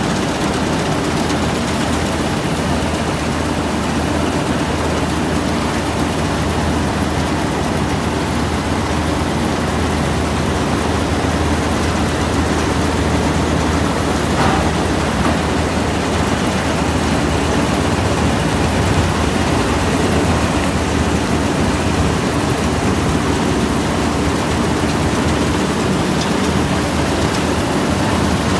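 Vishal combine harvester running steadily: an even engine drone under a loud, wide mechanical rush that holds without a break.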